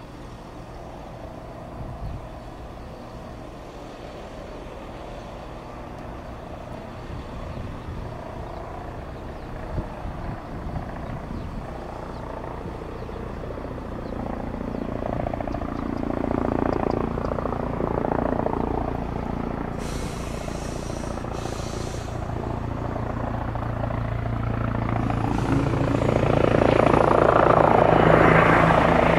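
Eurocopter EC135 T2+ air ambulance helicopter's rotors and turbine engines, growing steadily louder as it flies in low toward the listener and comes into a hover.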